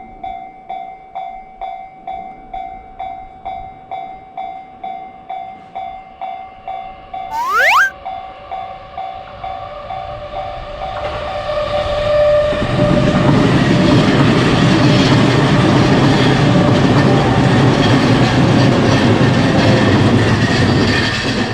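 Japanese level-crossing warning bell ringing steadily, about two strikes a second, with a quick rising whistle sweep about seven seconds in. A train then comes through: its passing noise builds and stays loud for the last nine seconds or so before cutting off abruptly.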